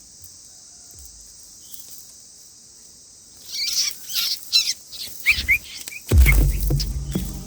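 A steady high insect drone, then a quick flurry of short bird chirps about halfway in. Near the end, deep bass thumps from background music come in.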